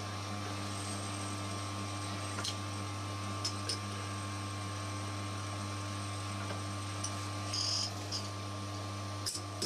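Metal lathe running steadily, its chuck spinning a bolt: an even motor hum with a few faint ticks and a short hiss near the end.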